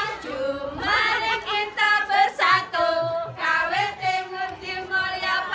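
Several women singing together as a group, with some held notes.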